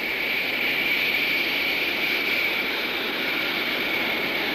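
Jet aircraft engine running: a steady rushing noise with a high whine held at one pitch.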